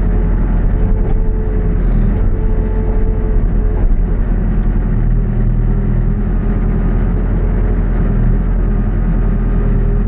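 New Holland B95B backhoe loader's diesel engine running steadily under working load, with a higher whine that comes and goes as the hydraulics work.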